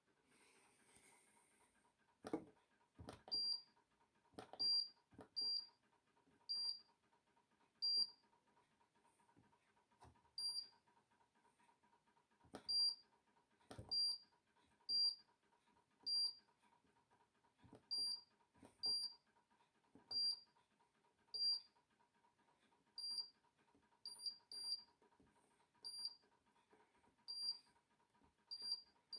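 Control panel of a Hoover Dynamic Next condenser tumble dryer beeping as settings are selected: short, high, identical beeps at uneven gaps of about a second, most with a small click, and a few louder knocks in the first few seconds and once in the middle.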